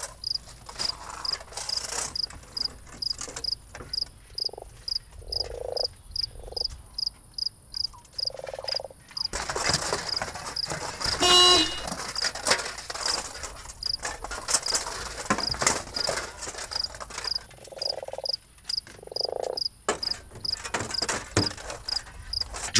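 Night ambience of crickets chirping steadily, about two chirps a second, with frogs croaking now and then. Over it come clanks and knocks of a metal suit of armour bumping against a car door and body as someone clambers into the car, and a brief honk-like tone about halfway through.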